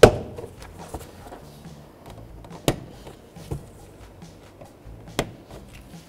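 Sharp plastic clicks as push-pin body clips on a Volvo V70 door trim panel are pushed in and pried out with a small screwdriver. A loud snap comes right at the start, then three more spaced across the rest.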